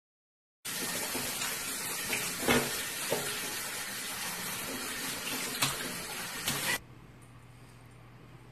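Shower running in a tiled shower stall, a steady hiss of spraying water with a few sharp knocks. It starts abruptly just under a second in and cuts off sharply near the end, leaving only a faint low hum.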